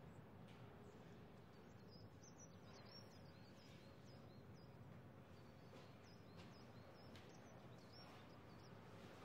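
Near silence: a faint steady background hiss with faint, repeated high bird chirps throughout.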